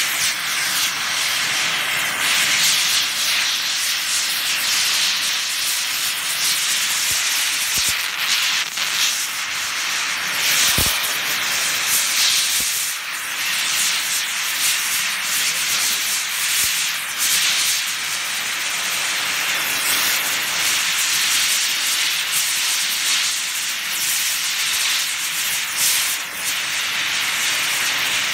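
Oxy-fuel torch flame hissing steadily as it heats a rusted bolt on a disc mower gearbox cover to free it, with a single sharp click about eleven seconds in.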